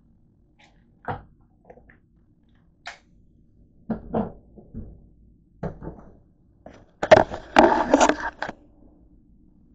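Close handling noise: a few light clicks and knocks of plastic pill bottles being handled, then about a second and a half of denser clattering and rubbing near the end as the camera is picked up and moved.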